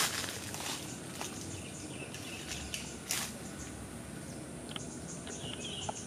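Footsteps and leaves rustling as someone walks through forest undergrowth, with scattered crunches in the first few seconds. Faint bird chirps and a steady high insect drone sit in the background.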